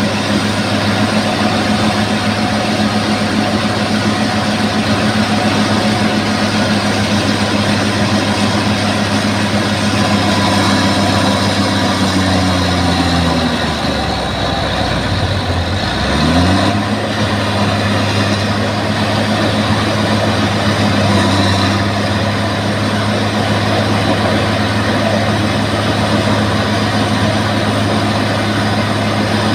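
Bulldozer diesel engine running steadily. About halfway through, its speed sags for a few seconds, then quickly climbs back to the earlier steady speed.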